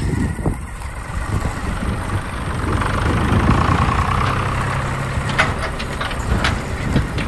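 Toy Mahindra Arjun Novo tractor's plastic wheels rolling over rough pavement, a steady low rumble with a couple of sharp clicks near the end.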